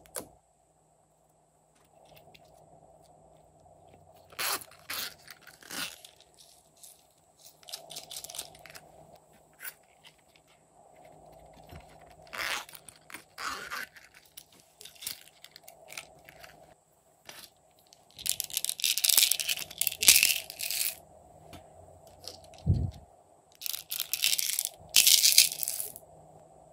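Small plastic containers of slime toppings being opened and tipped out: scattered clicks and scrapes, then longer crackling, rattling pours of glitter, sequins and small beads onto trays of slime, loudest in the second half.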